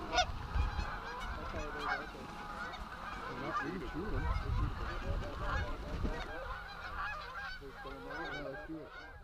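A large flock of Canada geese honking, many overlapping calls at once, with a low rumble underneath; the calls thin out near the end.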